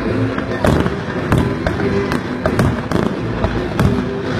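Fireworks going off in a dense barrage: sharp bangs and cracks a few times a second at irregular intervals, over a continuous low rumble of shell bursts.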